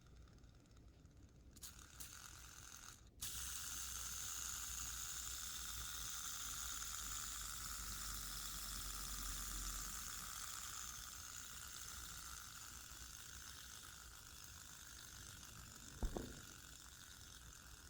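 Fidget spinner whirring after a sudden start about three seconds in, its hiss slowly fading as it spins down. A sharp knock near the end.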